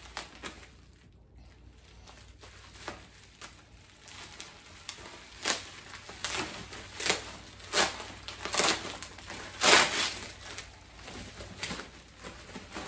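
Plastic bubble wrap and its packing tape crinkling and crackling as they are pulled apart by hand, in irregular bursts that grow busier and louder in the second half.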